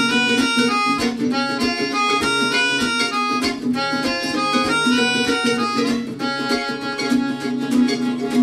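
Live acoustic band music: a melodica plays the melody over strummed acoustic guitar and mandolin.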